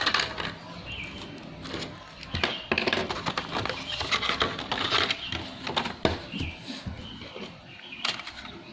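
Irregular clicks and knocks of hard plastic and metal laptop parts being handled while the optical drive is swapped for a hard-drive caddy.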